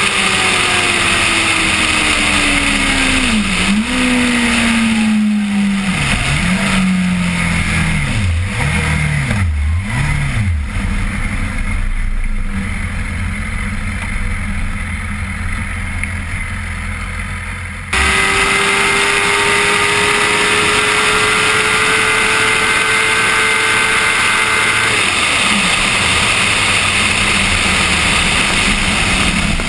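BMW S 1000 RR inline-four engine heard onboard at very high speed over loud wind roar. Over the first ten seconds it decelerates hard from top speed: the revs fall, with a run of quick downshifts that each send the revs up briefly. The sound then fades down. After an abrupt cut about eighteen seconds in, the engine pulls in a high gear with the revs climbing slowly, then rolls off about twenty-five seconds in.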